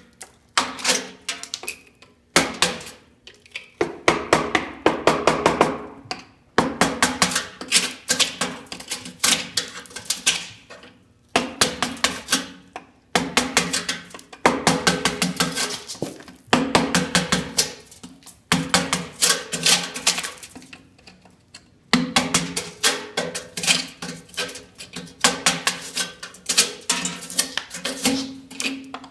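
Hammer striking a chisel in rapid runs of taps against the metal mailbox box in a brick column, with a metallic ring. Each run lasts a second or two, with short pauses between.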